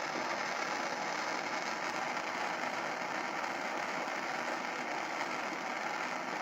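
Bernzomatic hand torch burning with a steady, even hiss.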